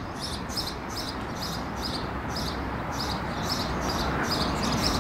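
Low, steady hum of the Škoda Rapid's 1.6 MPI four-cylinder petrol engine idling, growing slightly louder towards the end. Over it a bird chirps repeatedly in high short notes, about three a second.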